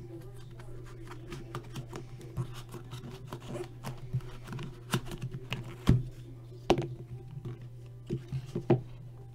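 Hands handling a small cardboard box of trading cards and pulling the stack of cards out of it: a run of light clicks, taps and scrapes, with a few sharper knocks around six and seven seconds in and near the end, over a steady low hum.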